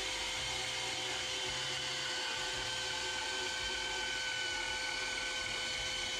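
Bandsaw and a dust-extraction fan running steadily: a constant whine with a few fixed tones over an even hiss.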